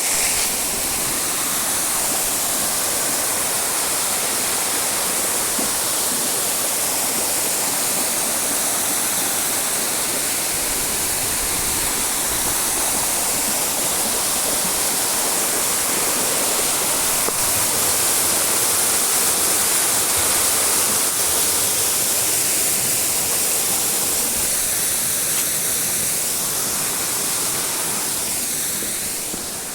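A large waterfall: a steady rush of falling water that eases slightly near the end.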